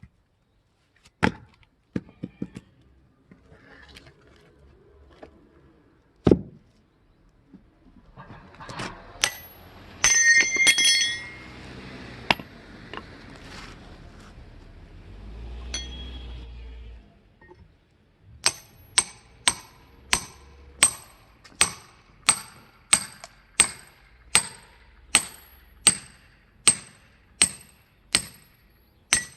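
Firewood being split with metal-on-metal blows: scattered knocks and a clattering, ringing clink at first, then, from about two-thirds of the way in, a steady run of sharp metallic strikes, about one and a half a second, each with a short high ring.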